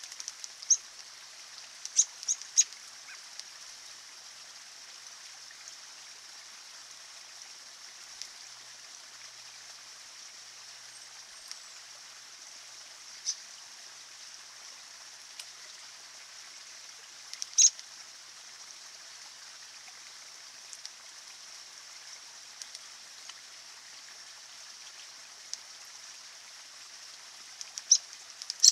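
Small man-made woodland stream trickling steadily over rocks, with a handful of brief, sharp high sounds from American robins bathing in it: a cluster about two seconds in, one past the middle and two near the end.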